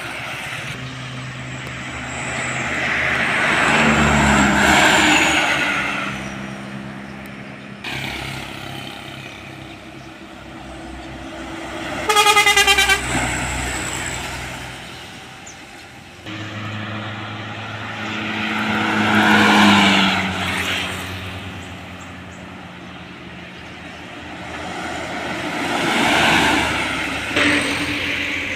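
Trucks and other vehicles driving past on a road one after another, their engine and tyre noise swelling and fading with each pass. About twelve seconds in, a vehicle horn sounds once for about a second, the loudest sound.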